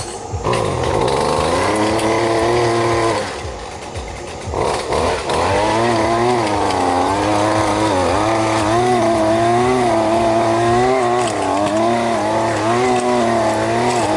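Small gas engine of a string-trimmer powerhead driving a tiller attachment, revving up and running at high speed. Its pitch wavers up and down throughout, with a brief slow-down about three to four seconds in before it revs back up.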